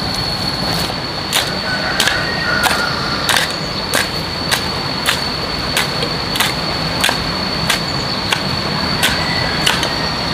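Sharp knocks at a steady pace, about three every two seconds, over a steady hiss and a high, steady whine.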